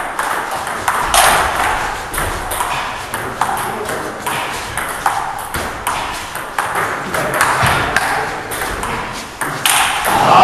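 Table tennis rally: the ball clicks back and forth off the bats and the table in quick, uneven succession.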